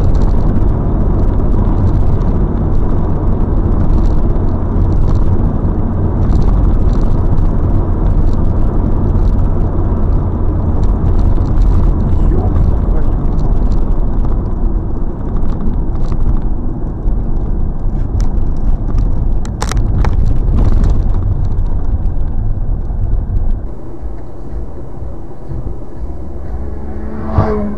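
Car on the move: steady engine and road noise, heavy in the low end, with a few sharp clicks about two-thirds of the way through. The noise drops in level near the end.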